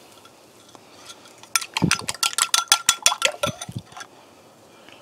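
Three eggs being beaten in a bowl: a utensil clinking rapidly against the bowl for about two seconds, starting about a second and a half in, with a faint ringing from the bowl under the strokes.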